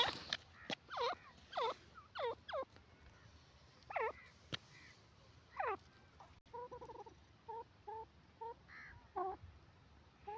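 Grey francolin (teetar) calling softly: a run of short, quick downward-sliding notes, roughly one every half second to second. From about six and a half seconds in, they give way to soft, short clucking notes.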